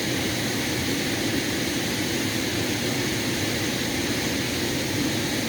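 Waterfall on a creek, a steady, even rush of falling water.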